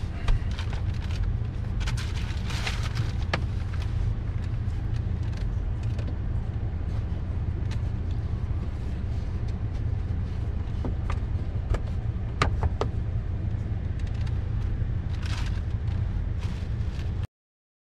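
Steady low rumble inside a car's cabin, with scattered light clicks and knocks as a plastic sun visor and its mounting bracket are handled, and a couple of brief rustles. The sound cuts off suddenly near the end.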